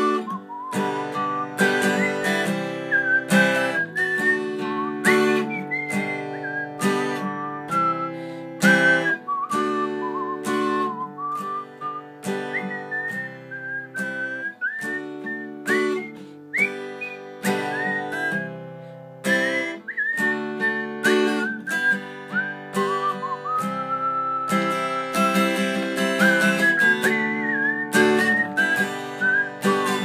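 A woman whistling a wandering melody over her own strummed acoustic guitar chords, holding one long whistled note about three-quarters of the way through.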